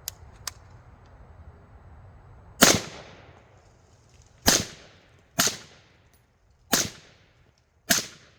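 Five suppressed rifle shots through a 30-calibre OSS suppressor, fired at uneven intervals with a short echo trailing each; two faint clicks come just before the first shot.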